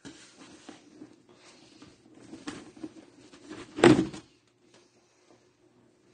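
Rustling and scuffing handling noises, with one loud thump about four seconds in, then only a faint low hum.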